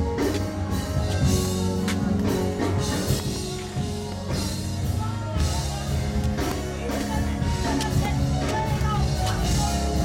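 Live gospel worship band playing, with drum kit hits over sustained bass notes. A singing voice with a wavering pitch comes in about halfway through.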